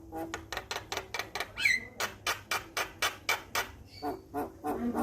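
Male Javan myna (jalak kebo) calling: a fast run of sharp clicking notes, about four a second, with a short downslurred whistle about one and a half seconds in.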